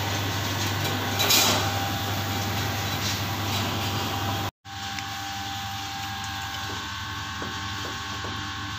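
Steady rushing noise of a gas stove burner heating a pot of tamarind Pad Thai sauce that is close to the boil. About halfway through, the sound cuts out for an instant and then goes on as a quieter steady hiss.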